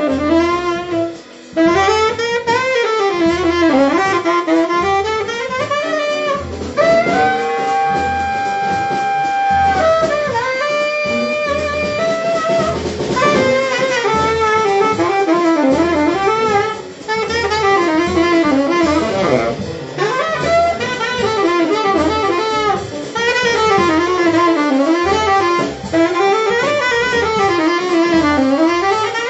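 Saxophone soloing in fast, winding runs over piano, bass and drums in a small jazz quartet, with one long held high note about seven seconds in.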